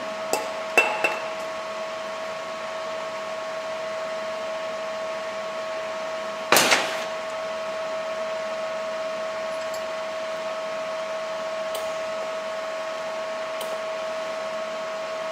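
Metal knocks and clinks over a steady machine hum: a few light clinks in the first second and a half, then one loud metal clank with a short ring about six and a half seconds in.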